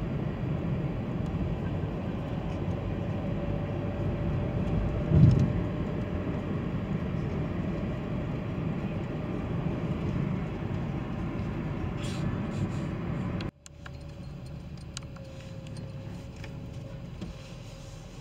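Steady road and engine noise inside a moving car's cabin, with a single thump about five seconds in. Past the middle it cuts out abruptly and carries on quieter.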